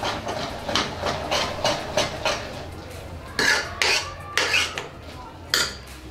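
Steel spoon stirring cooked rice and milk in an aluminium pressure cooker pot, scraping against the pot about twice a second. In the second half come a few sharper, louder knocks of the spoon on the pot.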